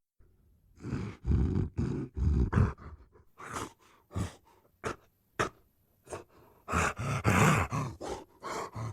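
Gorilla vocal sound effects: a run of short low grunts, then quick breathy huffs, and a longer rasping huff about seven seconds in.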